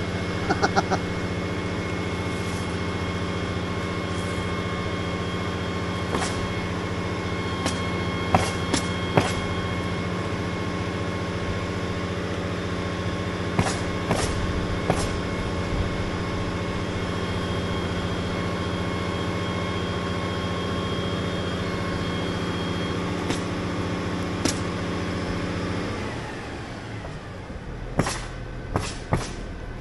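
Truck-mounted crane's engine running steadily, with scattered sharp taps over it. About three-quarters of the way through, the engine note drops away and it goes quieter.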